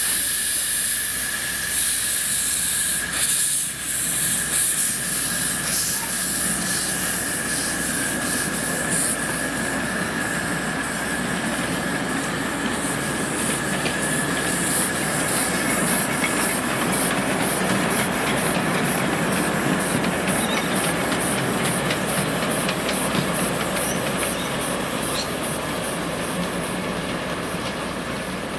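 Ride-on miniature live steam locomotive, a model of NSW 36 class 3658, hissing steam from around its cylinders. A steady high tone runs through the hiss. From about twelve seconds in, a quick, even beat joins it as the train runs along the track.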